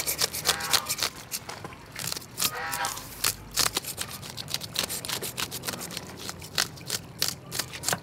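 Metal fish scaler raking scales off a parrot fish on a wooden cutting board: quick repeated scraping strokes.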